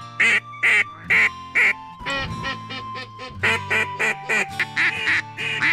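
Runs of short duck quacks, about two a second, over background music with long held notes.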